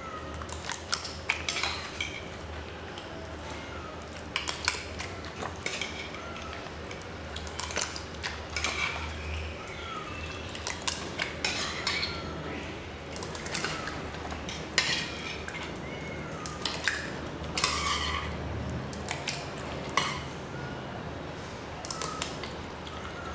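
Irregular metal clinks and scrapes from a stainless steel dog food bowl being handled while raw meat is fed from it, some clinks ringing briefly.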